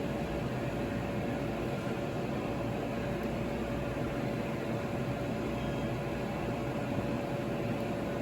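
Steady fan-like whir with a constant mid-pitched hum running through it.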